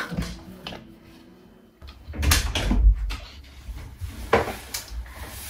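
An interior door being handled: a handle and latch clicking and a few knocks, with a cluster of heavier thuds about two to three seconds in and a sharp click a little after four seconds.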